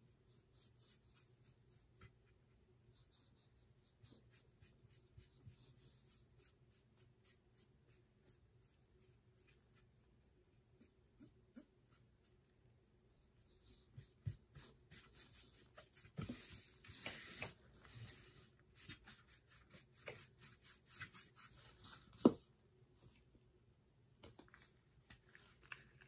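Foam sponge brush pushing and pulling alcohol ink across a metal tray: faint scratchy rubbing strokes, sparse at first and busier and louder in the second half. One sharp tap about four seconds before the end.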